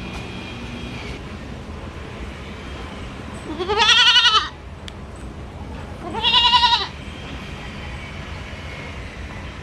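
Goat bleating twice, two loud calls about two seconds apart, each lasting about a second with a wavering pitch that rises and then falls, over a steady low background noise.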